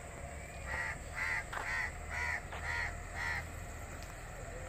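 A crow cawing six times in quick succession, about two caws a second, over a faint low outdoor rumble.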